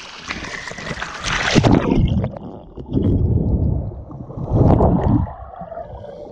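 Lake water splashing around a camera at the surface, then a splash about a second and a half in as it goes under. After that, the muffled low rumble of water heard underwater, swelling and fading in pulses.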